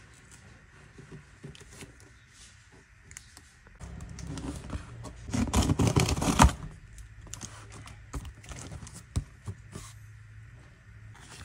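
A cardboard grinder carton being handled and opened: scraping and rustling, loudest from about four to six and a half seconds in and ending in a sharp snap, with lighter rustles and taps around it.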